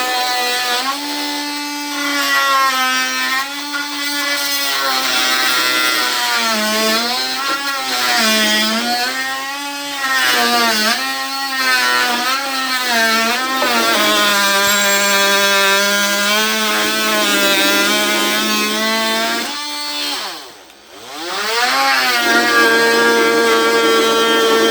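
Ryobi brushed oscillating multi-tool with a wood blade cutting oak, a loud buzz whose pitch sags and recovers as the blade bogs under load. About 20 seconds in it winds down almost to a stop and then speeds back up.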